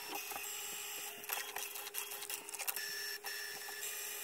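HP DeskJet 3070A inkjet printer running its printhead cleaning cycle: the printer's motors run with many quick clicks and ticks over a steady hum, and the sound stops abruptly at the end.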